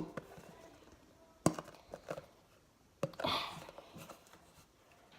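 A few light knocks and clicks, then a short hissing squirt a little past halfway: a glue bottle and bowl being handled while glue is squeezed out for slime.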